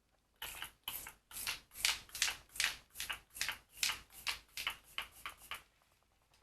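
Cover FX Beauty Spray setting-spray mist bottle pumped over and over, about fifteen short sprays a little over two a second.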